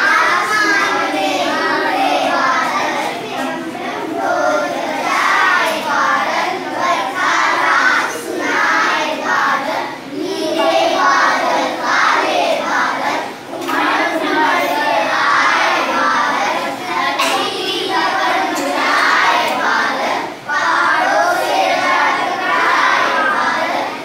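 A group of young children singing a song together, with brief pauses between lines.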